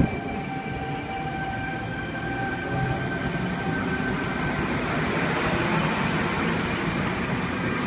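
Sydney Trains C set double-deck electric train moving along the platform, with a steady high whine that fades out about halfway through and the rumble of wheels on rail that grows slightly louder after it.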